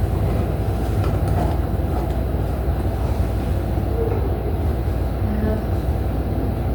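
Steady low rumbling background noise, with faint brief traces of a voice about four and five seconds in.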